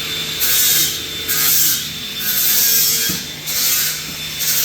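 A tool rasping back and forth in repeated strokes, roughly one a second, like sawing or filing.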